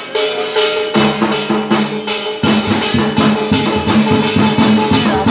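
Gavri folk music: a large barrel drum beaten in a steady rhythm, about two to three beats a second, with jangling metallic percussion on top. Sustained pitched tones come in about a second in and grow fuller about halfway through.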